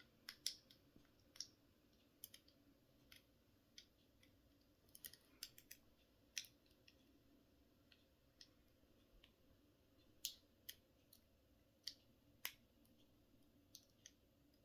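Faint, irregular metallic clicks and ticks of a lock pick working inside the keyhole of TCH 840 handcuffs while picking them open, with a few sharper clicks scattered among them.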